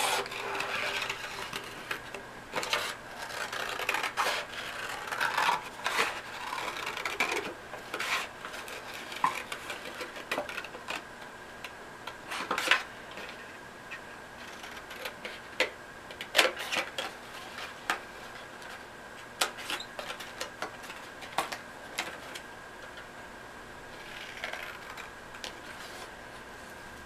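Scissors snipping through a paper plate: irregular crisp cuts with the plate rustling in the hand, and a few short pauses between runs of cuts.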